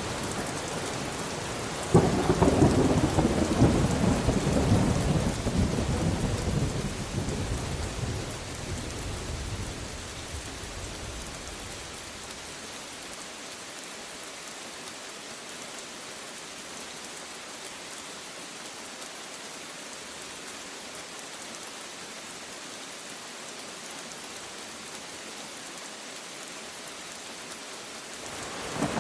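Steady rain with a sharp thunderclap about two seconds in that rumbles away over the next several seconds. The rain carries on alone, and another rumble of thunder begins near the end.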